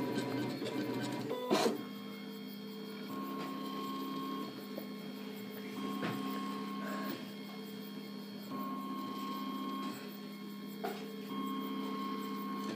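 Prusa Mendel i3 3D printer printing a small cube: its stepper motors whine in steady tones that switch pitch every second and a half or so as the print head moves back and forth. A sharp knock about a second and a half in.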